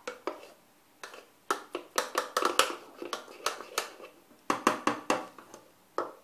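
Metal spoon clicking and scraping against the sides of a plastic measuring jug while stirring a thin flour batter, in quick runs of taps with short pauses between them.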